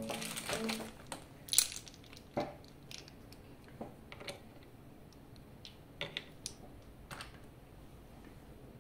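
A guitar note through an effects pedal dies away, then scattered light clicks and knocks as home-built guitar effects pedals are handled and set down on a cutting mat and a knob is pushed onto a pedal's control shaft.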